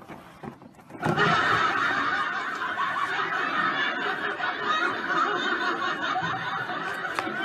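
Laughter breaking out about a second in and carrying on densely and steadily.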